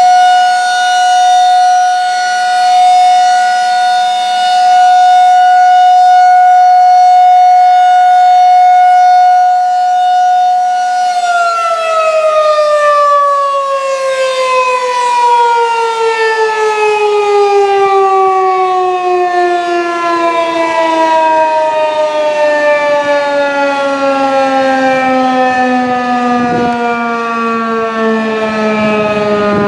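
Federal Signal 2001-SRN outdoor warning siren sounded as a test: a loud steady tone at full pitch, which after about eleven seconds begins to wind down, its pitch falling slowly and steadily to the end.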